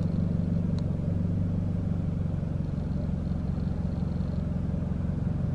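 A car running, a steady low rumble with no change in pitch.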